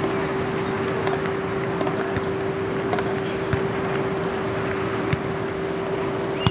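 Steady noise of surf and wind, with a constant hum running underneath and a few faint clicks.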